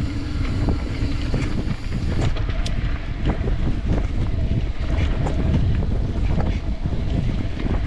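Mountain bike rolling over a dirt singletrack: a steady low rumble of wind on the action camera's microphone and tyres on the trail, with the bike rattling in many short, scattered clicks.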